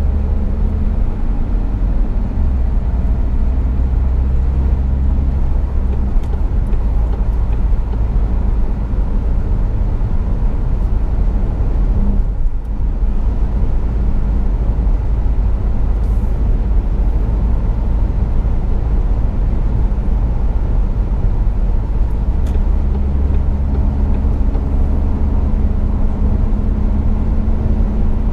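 Car engine and road noise heard from inside the cabin while cruising at motorway speed: a steady low drone whose engine hum shifts a couple of times.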